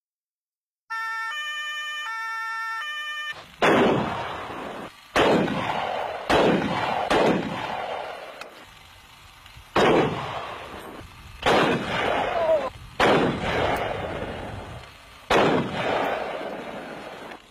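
A short electronic tone jingle, then a series of about eight gunshots spaced one to two seconds apart, each with a long echoing tail. The rounds are being fired at an armoured car's body panels and window glass in a ballistic test.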